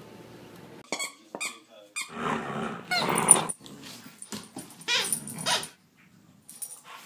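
Two dogs growling at each other in play over a toy, in several short outbursts. There are a few short high squeaks about a second in.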